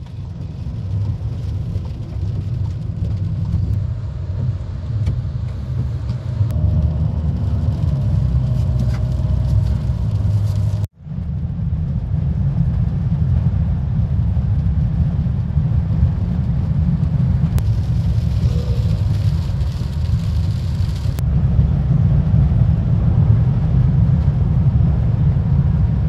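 Steady low road and engine rumble heard from inside a moving car's cabin, broken once by a short gap about eleven seconds in.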